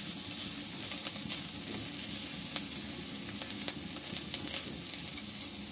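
Chopped onion, garlic and ginger sizzling in butter in a nonstick pan as a spatula stirs them, a steady hiss with scattered small crackles and taps.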